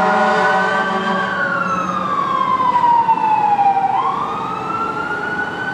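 Fire engine siren on wail: the pitch peaks about a second in, falls slowly for nearly three seconds, then rises again near the end.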